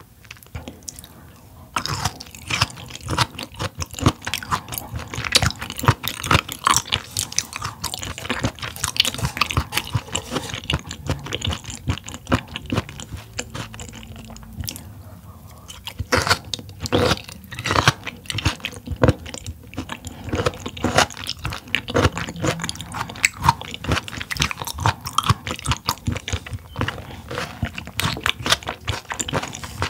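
Close-miked chewing of raw mullet stomach (gizzard) pieces dressed in sesame oil: a dense run of quick sharp clicks from the mouth, with a short lull about halfway through.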